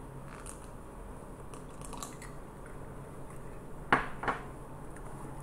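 Two sharp clicks about half a second apart, about four seconds in, over a low steady hum of the recording setup.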